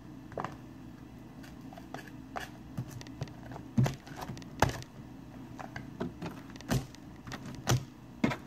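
Sticky, runny slime being squeezed and pulled by hand, giving irregular wet clicks and pops, the loudest about four seconds in and again near the end.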